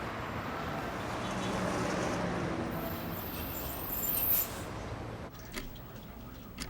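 Steady rushing traffic-type street noise, with a brief high hiss about three seconds in, then a few faint clicks near the end.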